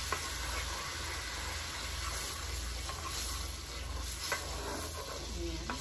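Flour-and-butter gravy sizzling in a cast-iron skillet while a wooden spatula stirs it as it thickens, with a few light clicks of the spatula against the pan.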